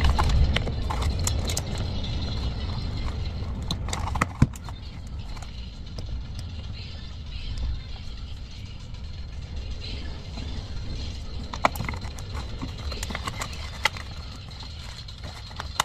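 Thin white cardboard favour box being folded and handled: soft rustling with a few sharp taps spread through, over a low rumble that is loudest in the first few seconds and then eases.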